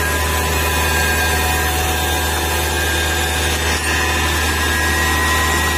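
3-ton forklift's engine running steadily, a low drone with a steady whine over it, as the hydraulics turn the roll clamp's rotator in a test after its seals were replaced.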